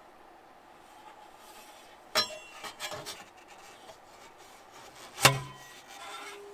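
Metal stove chimney pipe sections being handled and fitted together: scraping and rubbing of metal on metal, with two sharp metallic clanks, about two seconds in and again about five seconds in. The second clank is louder and rings on briefly.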